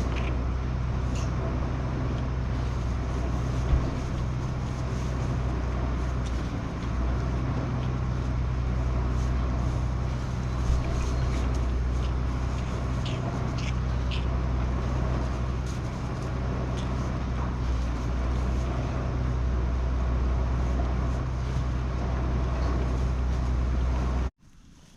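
A steady, low engine or motor drone with a few light clicks and knocks over it, cutting off abruptly near the end.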